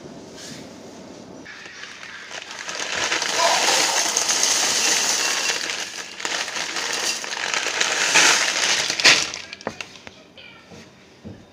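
Dry food pieces poured from a plastic bag into a bowl: a dense rattling hiss with the bag crinkling, swelling twice and stopping about nine seconds in with a few sharp clicks.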